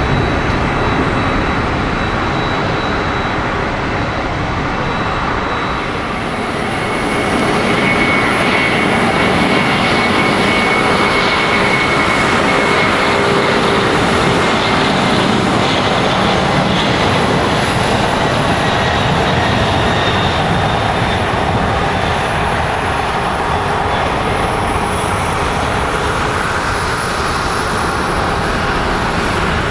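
Boeing 747-400's four turbofan engines at takeoff thrust: a loud, steady jet roar that grows a little louder about seven seconds in, with a high whine over it for several seconds.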